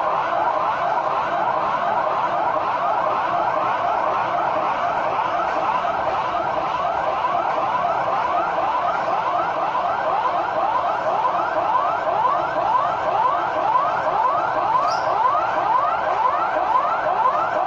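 Public emergency warning siren sounding a fast yelp during a test of the warning system: short rising sweeps repeat rapidly and evenly, at a steady loudness.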